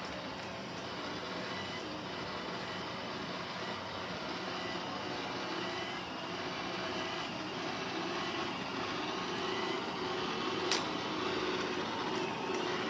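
iRobot Roomba j5 robot vacuum running: a steady whirring hum from its motor and brushes, with a single sharp click near the end.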